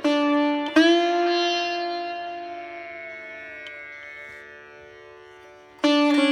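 Sitar playing: two plucked notes about a second apart, the second left to ring and fade for several seconds with a slight bend in pitch, then a fresh strum near the end.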